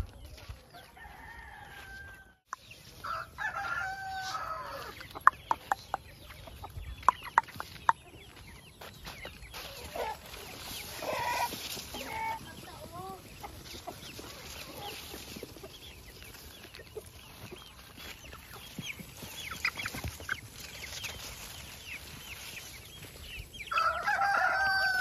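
A flock of Rhode Island Red chickens clucking, with a rooster crowing a few times, one long crow near the end. A run of sharp clicks comes about five to eight seconds in.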